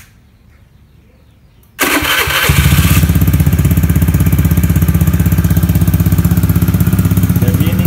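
Honda Vario 110 LED scooter's single-cylinder four-stroke engine, breathing through a WRX Standar Racing aftermarket exhaust, started about two seconds in and then idling steadily with a rapid, even pulse and a bassy exhaust note.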